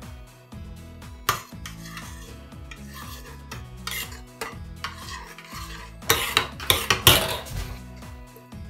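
A metal spoon stirring milk and cream in a stainless steel saucepan, scraping against the pan. It ends in a quick run of sharp clinks of spoon against pan about six to seven seconds in, with a single click about a second in. Soft background music plays under it.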